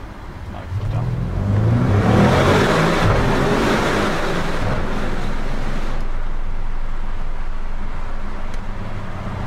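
Audi RS6 Avant's twin-turbo V8, tuned to 735 hp, accelerating hard, heard from inside the cabin in a road tunnel. The engine note rises sharply about a second in and is loudest for the next few seconds, then settles to a steadier, duller run.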